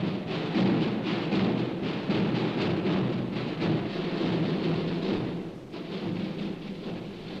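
A dense, continuous roll of many drums, growing quieter over the last couple of seconds.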